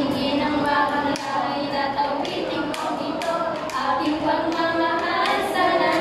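A group of teenage girls rapping and chanting in Filipino, their voices held on pitched syllables, with several sharp percussive taps through it.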